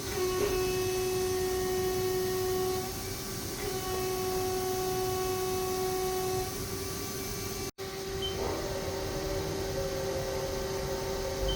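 A 2012 Haas ST40L CNC lathe running with a steady pitched whine and overtones that shift a few times. The sound cuts out for an instant about two-thirds of the way in, then the whine carries on with a slightly different, wavering tone.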